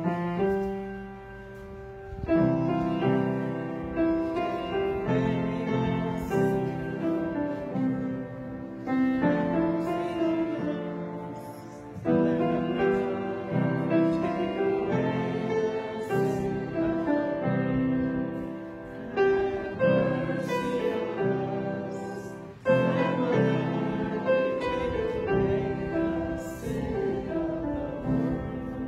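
A slow hymn played on piano, its notes struck one after another and left to ring.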